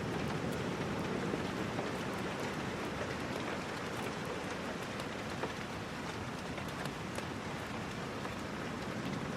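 Steady rain falling and pattering on surfaces, with a few faint sharp ticks scattered through it.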